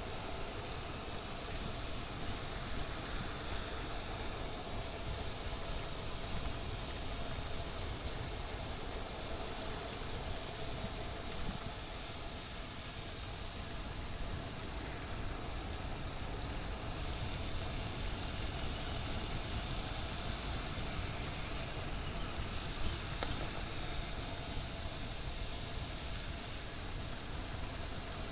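Motorcycle riding at a steady pace: the engine running under a steady rush of wind noise, with a low rumble and a high hiss.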